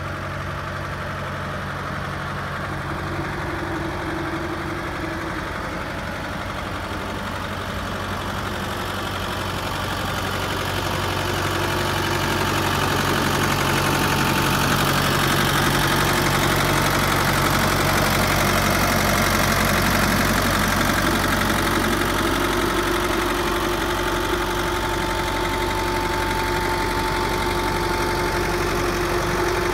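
SAME Leopard 90 Turbo tractor's 4.2-litre four-cylinder turbodiesel idling steadily. It grows louder through the middle and eases off a little near the end, with no change in engine speed.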